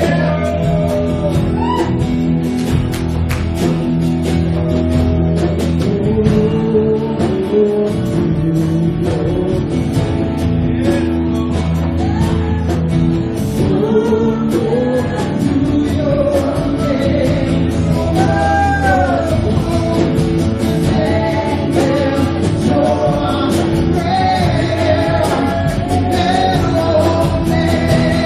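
Praise and worship music: a band playing steadily with singing voices over it.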